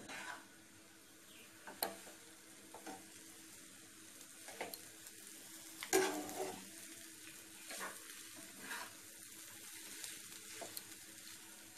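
Chow mein noodles stir-fried over a high gas flame: a faint steady sizzle, with a spatula scraping and tossing the noodles in the pan every second or two. The loudest stroke comes about halfway through.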